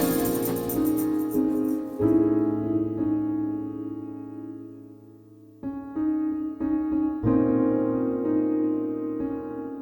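Background music: slow, soft piano chords that die away about halfway through, then start again.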